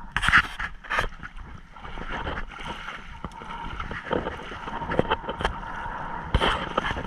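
Shallow seawater sloshing with wind on the microphone, broken by scattered sharp knocks, the loudest about a third of a second in and again near the end.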